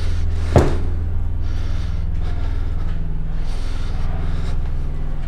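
Steady low mechanical drone, with one sharp knock about half a second in.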